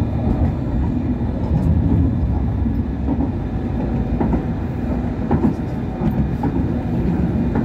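Hong Kong Light Rail Phase I car running along the track: a steady low rumble of wheels and motors, with a few light clicks from the wheels on the rails about halfway through.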